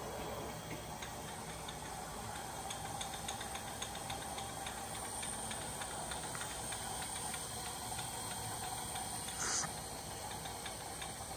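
Cincinnati universal tool and cutter grinder being cranked by hand through its vertical travel: faint scattered ticks from the feed mechanism over a steady hiss. A brief louder rustle comes about nine and a half seconds in.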